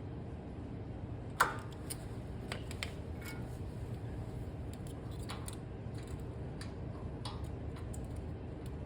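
Hand tools clicking and tapping on metal during a valve-clearance adjustment, scattered single clicks with one sharp click about a second and a half in, over a steady low hum.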